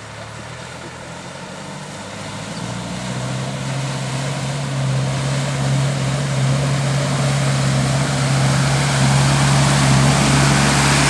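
Land Rover Discovery wading through a river ford, its engine running with a steady low drone that grows louder as it approaches, over the rushing surge and splash of its bow wave, which is loudest near the end.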